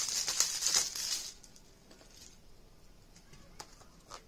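Crinkling and tearing of plastic shrink wrap being pulled off a 4K Blu-ray case, stopping after about a second. A few faint clicks of the plastic case being handled follow.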